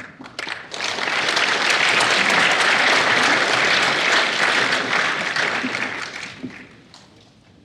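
Audience applauding: a few scattered claps, then full applause swelling about a second in, holding, and fading away over the last couple of seconds.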